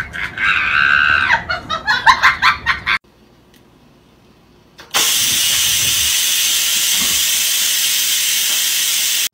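Electric pressure rice cooker venting steam through its release valve: a loud, steady hiss that starts suddenly about five seconds in. Before it come about three seconds of short pitched vocal sounds, then a brief lull.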